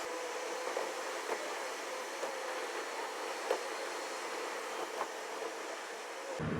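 Steady road and wind noise of a car driving on the highway, an even hiss with a faint hum and a few light ticks.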